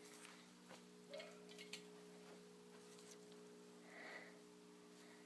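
Near silence: a faint steady electrical hum with a few faint ticks and soft sounds, and a faint short sound about four seconds in.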